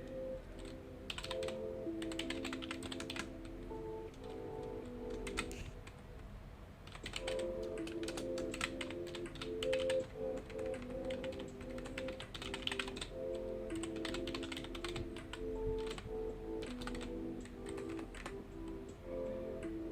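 Typing on a computer keyboard: runs of quick keystroke clicks with a short pause about six seconds in, over soft background music.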